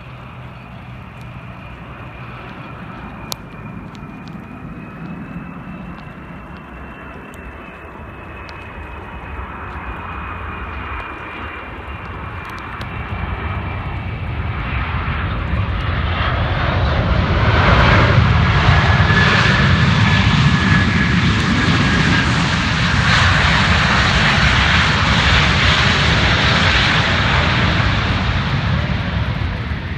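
Airbus A330-300 airliner's jet engines during landing. A thin high whine swells into a loud, steady rush about halfway through, around touchdown, and the rush holds as the jet rolls out along the wet runway throwing up spray, easing off near the end.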